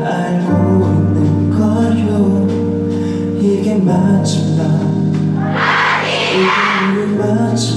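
Male solo singer performing a slow ballad live into a microphone over an accompaniment of long, held low notes.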